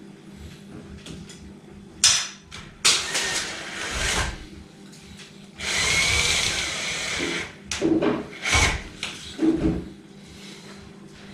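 Cordless drill-driver run in several bursts, driving screws into a ceiling: two short runs, a longer run with a steady motor whine midway, then three quick spurts near the end.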